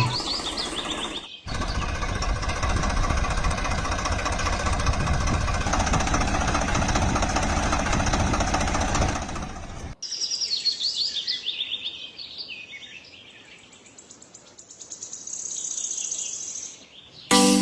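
A loud, dense rattling noise for about eight seconds that stops abruptly, then birds chirping in short, quick, falling calls.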